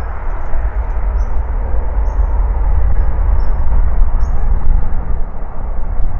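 Steady deep rumble of jet aircraft engines, with a few faint short high chirps above it.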